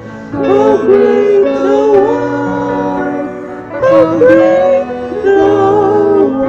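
Hymn music: a melodic line that bends and holds notes over sustained accompaniment chords.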